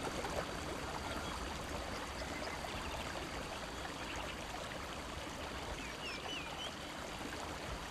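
Steady rush of a flowing river, with a few faint high chirps about six seconds in.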